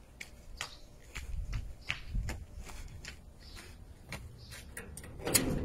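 Footsteps and phone handling noise: a run of light clicks and rustles over a low rumble, with a louder knock near the end.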